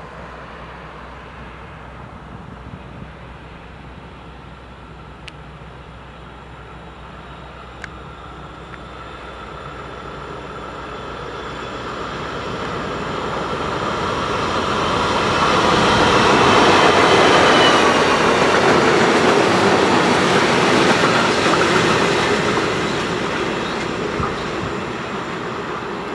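DB class 225 diesel-hydraulic locomotive hauling four loaded ballast hopper wagons past: the engine running and the wheels rolling on the rails. The sound grows from about ten seconds in, is loudest a little past the middle, then fades as the train draws away.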